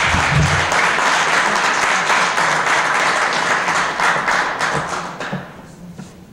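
Audience applauding, the dense clapping dying away about five seconds in.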